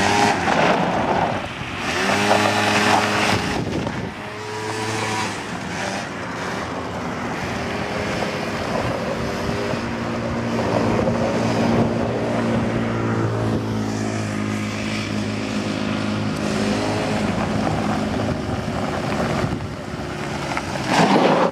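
Small quad bike (ATV) engine revving as it pulls away. It then holds a fairly steady note while the bike rides off and comes back, and grows louder as it returns near the end.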